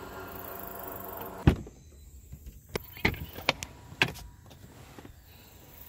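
An SUV's power tailgate motor whines steadily as the tailgate rises, ending in a loud thump about a second and a half in. Then come a handful of sharp clicks and knocks as a rear seat's release is worked and the seat folds down.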